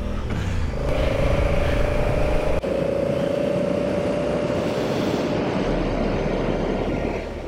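Honda Africa Twin CRF1000L motorcycle cruising along a gravel road: the engine runs steadily under wind and tyre noise, with a steady tone through the first part.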